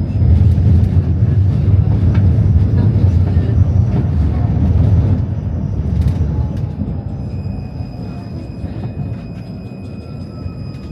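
Tram running on its rails, heard from inside the car: a loud low rumble of wheels on track with scattered clicks, easing after about five seconds. A faint steady high whine comes in about seven seconds in.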